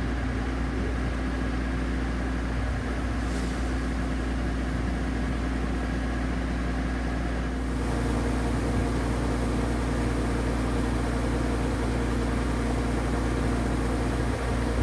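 Engine of farm machinery running steadily with a constant hum. About eight seconds in, the sound becomes a little louder and brighter.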